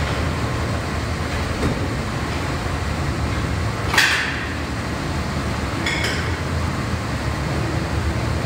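A steady rushing noise with a sharp metallic clank about four seconds in that rings briefly, and a fainter ringing clink about two seconds later.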